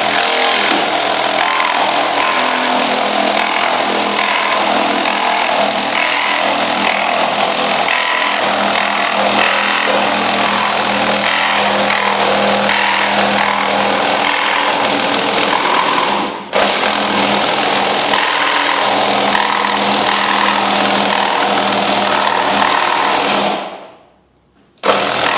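Ridgid Gen5x R8642N 18-volt cordless reciprocating saw running at full speed, sawing through a nail-studded board. It cuts out for an instant about two-thirds of the way through. Near the end it runs down to a stop and then starts up again.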